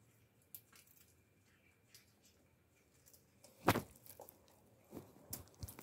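Mostly quiet, with a few faint clicks, one louder short knock a little over three and a half seconds in, and a few smaller knocks near the end.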